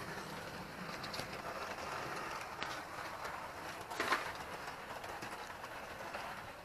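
Bachmann OO gauge Class 44 model diesel locomotive running along the track: a steady whirr of its motor and wheels, with a sharp click about a second in and a louder one about four seconds in.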